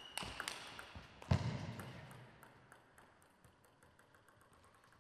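Table tennis ball clicking sharply off bats and table in a rally, with a heavier thud about a second and a half in, then faint scattered ticks.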